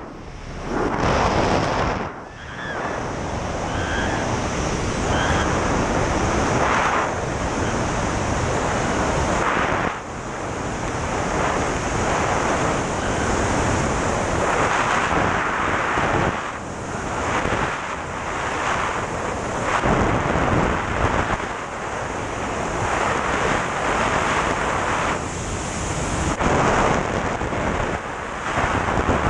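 Freefall airstream buffeting a camera microphone during a tandem skydive: a loud, dense wind rush that surges and eases every few seconds.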